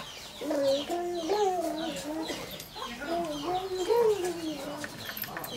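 Domestic hens clucking in drawn-out, wavering calls, twice in a row, with small birds chirping high and quick over them.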